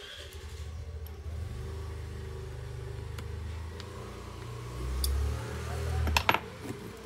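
A low engine rumble that swells a little about five seconds in, with a few sharp clicks near the end.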